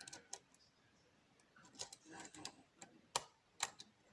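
Lock pick and tension wrench working in the keyway of a pin-tumbler challenge lock: scattered sharp clicks and ticks, about half a dozen, with faint scraping between them.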